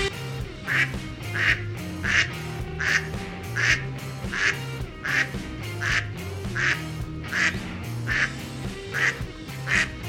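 Duck quacking over and over, about thirteen short quacks at an even pace of roughly one every three-quarters of a second, over soft background music.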